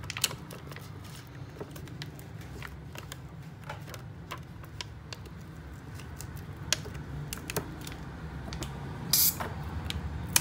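Irregular small plastic clicks and ticks as thin plastic sheets are worked under a tablet's screen to slice through the adhesive holding it, over a steady low hum. A short hiss comes about nine seconds in.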